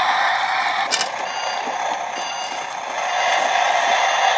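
Battery-operated toy recycling truck playing its electronic truck sound effects through a small speaker: a steady engine noise, with short repeating beeps from about a second in.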